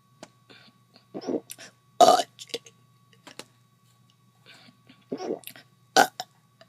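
A person making about four short throaty sounds, each under half a second, the loudest about two seconds in.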